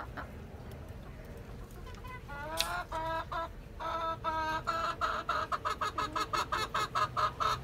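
Small hen clucking: a rising call a little over two seconds in, a few short calls, then a run of quick clucks, about four a second, that carries on to the end.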